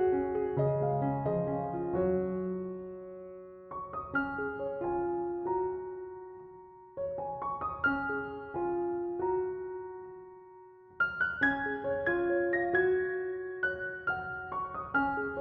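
Background piano music: gentle phrases of struck notes that ring and fade, starting afresh about every three to four seconds.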